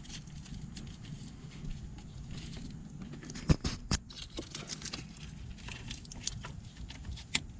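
Hands working a plastic wiring-harness connector onto the ECU, with wires rustling and a few sharp plastic clicks: two loud ones close together about three and a half seconds in and another near the end.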